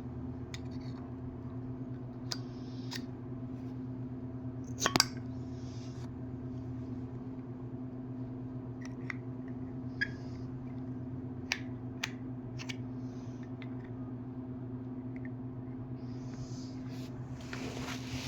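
Small clicks, taps and brief scraping as debris is cleaned out of the inside of a Zippo windproof lighter, a dozen or so scattered sounds with the loudest click about five seconds in, over a steady low hum.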